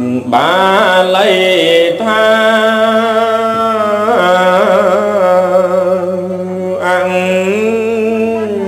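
Khmer smot: a monk chanting a Buddhist verse in a single solo voice, holding long notes that waver and slide between pitches, with a few short breaks.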